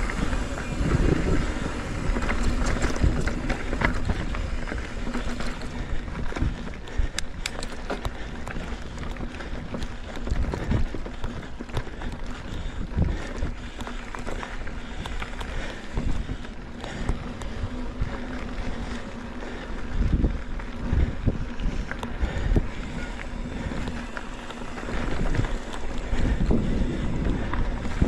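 Mountain bike riding over a rough dirt trail: wind buffeting the microphone over a constant rumble, with scattered clicks and knocks from the bike over bumps.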